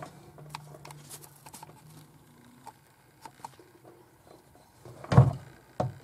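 Handling noise from a hand-held camera being moved around the pipes: faint scattered clicks and rubs over a faint low hum, then a loud bump about five seconds in and a shorter knock just after.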